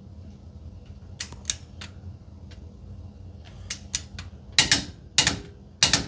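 Torque wrench ratcheting on the tie rod end nut as it is tightened to 55 foot-pounds: scattered sharp clicks, then three louder clicks about half a second apart near the end.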